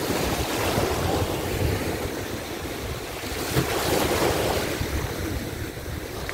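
Sea waves washing in the shallows, with wind buffeting the microphone; the wash swells and eases, loudest around the middle.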